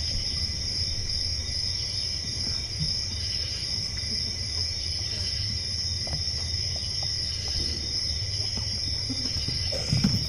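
Performance soundtrack of a steady cricket chorus, a high even trill over a low rumble, played through the hall's speakers. A short low thump comes near the end.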